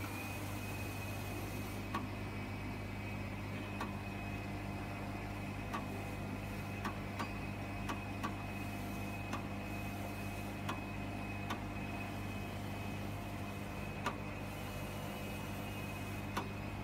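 Richpeace CNC flatbed cutter working across fur material with its round-knife head: a steady low hum under a constant high whine, with sharp clicks every second or two at irregular intervals.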